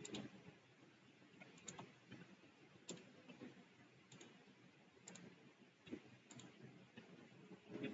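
Faint computer mouse clicks, about one a second and some in quick pairs, as nodes are placed one by one on a map in traffic-modelling software.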